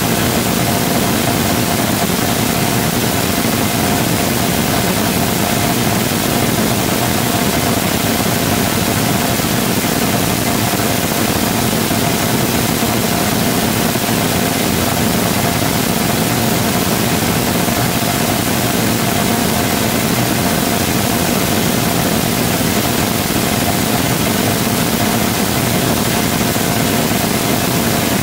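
Full-scale 3D-printed rotating detonation rocket engine combustor firing steadily: a loud, even rushing roar with a steady mid-pitched tone running through it.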